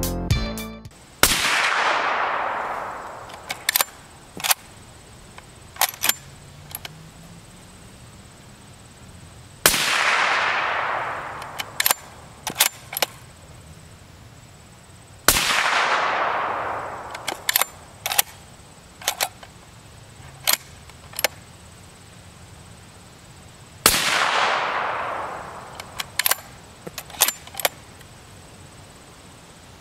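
Suppressed .30-caliber bolt-action rifle fired four times, fitted with a Q Nelson titanium suppressor, each shot a sharp crack followed by a long rolling echo that fades over about two seconds. Between shots come smaller sharp metallic clicks as the bolt is worked.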